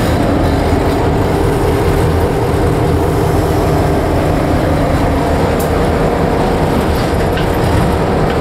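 Diesel-electric EMD locomotive running, heard from inside its cab: a steady, loud engine rumble with a low hum.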